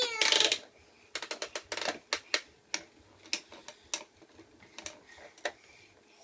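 A short hissing burst, then a run of a dozen or so irregular sharp clicks and taps that fade out over about four seconds.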